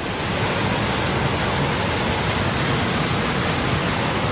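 Waterfall pouring over rock ledges: a steady, even rush of water.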